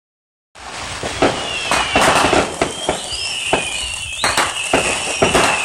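Fireworks going off: a run of sharp bangs and pops, with high whistles from whistling fireworks running over them. The sound starts about half a second in.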